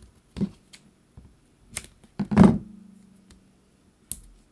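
Scissors being handled and worked at a craft table, scissors that are not cutting properly: a few sharp clicks and knocks, the loudest a thud about halfway through, followed by a low ring that dies away over a second or so.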